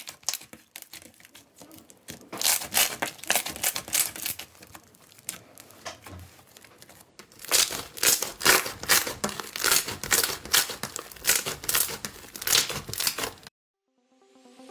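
Slime being squeezed and pressed by hand, giving a dense, rapid crackling and popping that comes in two long runs and cuts off suddenly near the end.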